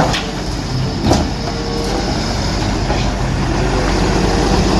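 Hyundai wheeled excavator's diesel engine running steadily while it digs, with two short knocks about a second apart near the start.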